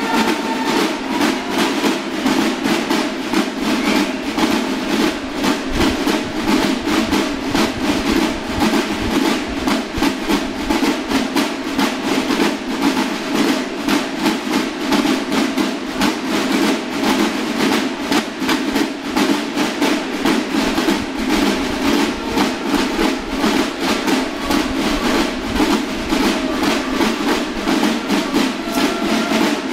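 Mexican banda de guerra drum section, snare and bass drums, playing a fast, continuous marching cadence.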